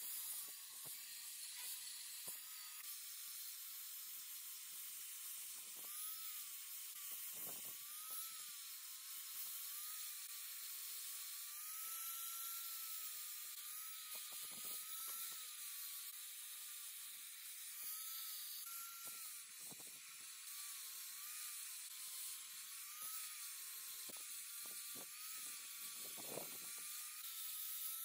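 Small electric angle grinder running with an abrasive wheel, scouring rust off steel parts: a high motor whine that sags and recovers in pitch as the wheel is pressed onto the metal and eased off, over a steady scratchy hiss.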